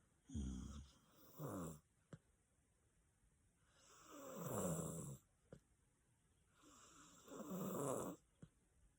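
A person snoring: four rough snores falling in pitch, two short ones close together near the start, then two longer ones a few seconds apart.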